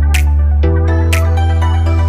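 Electronic background music: a sustained synthesizer bass chord that changes about half a second in, with a hi-hat or cymbal hit about once a second.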